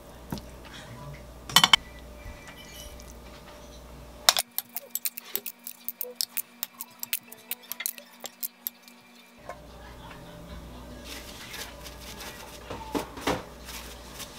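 Metal tongs clinking and scraping against a frying pan and ceramic plates as spaghetti with clams and shrimp is dished out, with a dense run of quick sharp clicks in the middle. A steady low hum runs underneath before and after that run.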